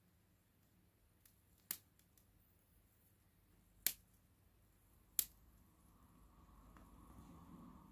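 Slightly damp, resin-rich Nordmann fir branches burning on a bed of embers. Three sharp crackles come about two, four and five seconds in, then a soft rushing sound builds as a flame takes hold.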